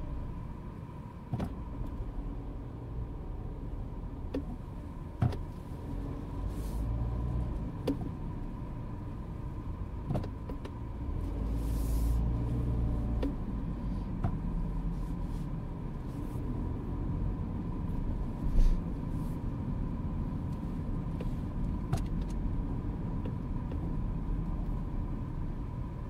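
Mini Clubman heard from inside the cabin while driving: a steady low rumble of engine and road noise that swells about halfway through. Scattered sharp clicks and knocks sound over it, the loudest about three quarters of the way in.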